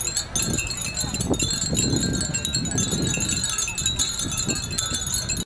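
A string of many small wind chimes jingling continuously in the wind, with many overlapping high ringing tones over a low wind rumble.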